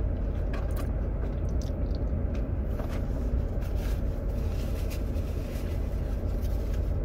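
Steady low rumble inside a Jeep Wrangler's cabin, with faint scattered clicks.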